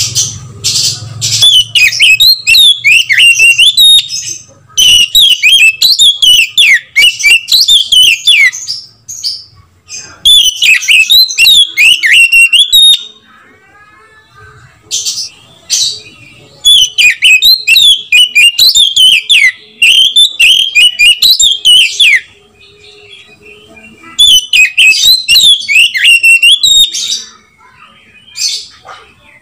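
Oriental magpie-robin (kacer) in full loud song: rapid, varied, sweeping whistled notes and trills in about six long phrases, each cut off by a pause of a second or two, with a few short notes near the end.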